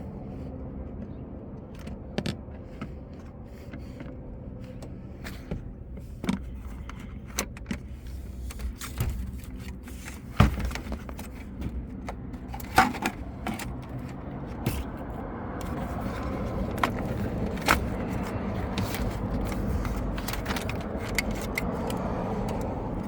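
Scattered clicks, knocks and rattles of hand tools and parts while unbolting and pulling speakers out of a pickup's dashboard, over a steady low rumble. A few sharper knocks stand out about ten, thirteen and eighteen seconds in.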